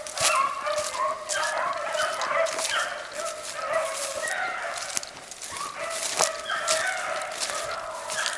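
A pack of rabbit-hunting dogs baying as they run a rabbit's trail, many voices overlapping continuously.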